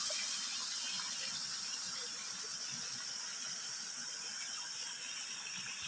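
Steady rush of running water, spouts from pipes splashing and water flowing over stone, easing off slightly.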